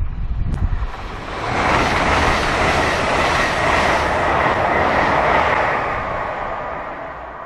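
Express passenger train passing through at speed. A low rumble at first, then a loud rush of wheels and air about a second and a half in that holds for about four seconds, with a faint steady whine, before fading as the train goes away.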